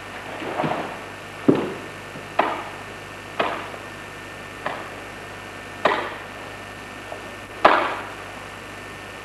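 Sharp cracks from a karateka's strikes and stance changes in a barefoot Goju-ryu kata, about seven at uneven spacing, the loudest near the end, each ringing briefly in the hall.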